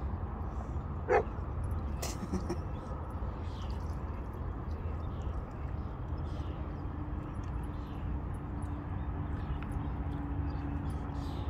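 A dog gives one short yelp about a second in, over a steady low rumble.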